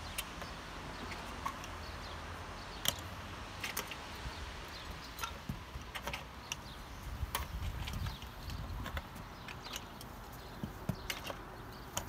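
Irregular sharp clicks and knocks of workers handling and fitting standing-seam metal roof panels, with a steady low rumble underneath.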